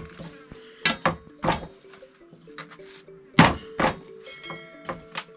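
A knife chopping through rolled dough onto a board: a few sharp knocks about a second in, then two more about three and a half seconds in, over soft background music.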